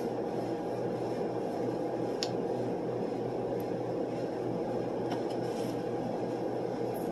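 Steady room hum from fans and ventilation, with faint mouth sounds of a person chewing a sausage biscuit and a couple of small ticks.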